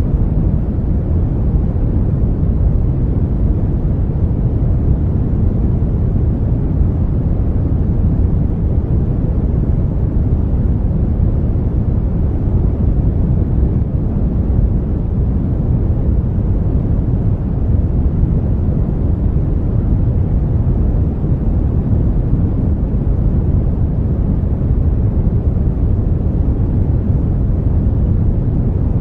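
Brown noise: a steady, smooth rumbling hiss weighted heavily toward the low end, with no change over time.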